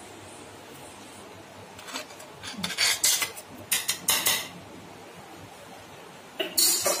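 Steel puttu tube and steel plate clinking and scraping as steamed puttu is pushed out onto the plate: a cluster of metal clinks and scrapes through the middle, then a short hiss near the end.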